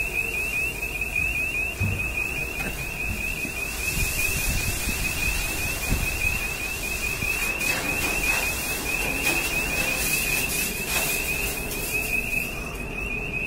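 Personal distress alarm on a firefighter's breathing apparatus sounding a steady, rapid high-pitched pulsing beep: the 'man down' alarm the unit gives when it detects that its wearer has stopped moving.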